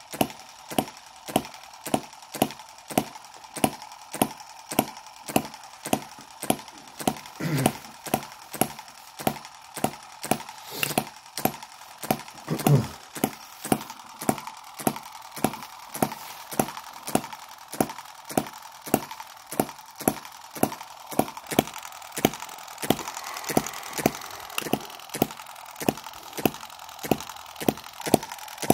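Microcosm M17 1.6cc model hit-and-miss engine running, with sharp, evenly spaced beats about two a second. It is running again after being turned backwards with the exhaust held shut, the sign that it had been flooded from its rich mixture. Two louder low bumps come through, the louder one about halfway through.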